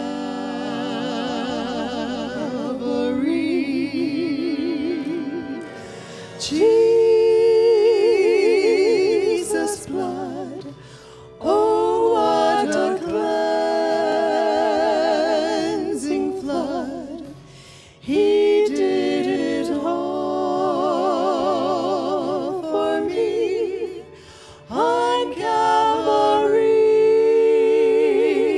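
Three women singing a gospel song together into microphones, in long phrases of held notes with vibrato, with brief breaks between the lines.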